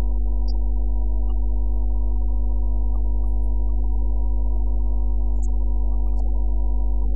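A steady low hum with a stack of overtones, holding one unchanging pitch.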